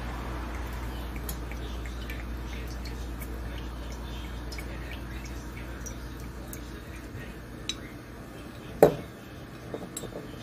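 Cooking oil poured from a bottle into a nonstick frying pan, with scattered light ticks and drips over a steady low hum. Near the end there is one sharp knock against the pan.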